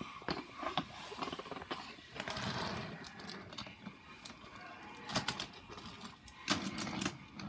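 Wooden toy trains rattling and clacking on wooden track, with scattered sharp clicks and knocks of wood on wood.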